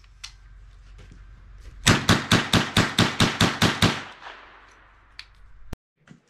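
Smith & Wesson M&P 15-22 semi-automatic .22 LR rifle fired rapidly, a string of about eleven shots at about five a second.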